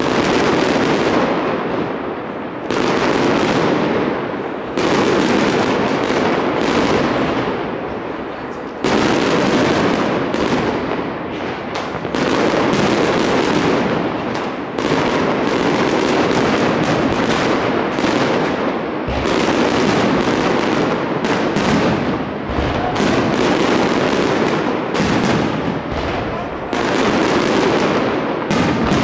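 Fireworks exploding in a dense, continuous barrage: overlapping bangs and crackling that come in waves, with a fresh burst of loud bangs every few seconds.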